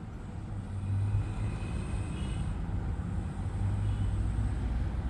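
A steady low rumble in the background, with faint high tones above it.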